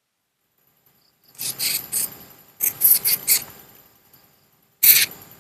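An insect calling with a cicada-like buzzing rasp, in three groups of a few short pulses each, the first starting just over a second in.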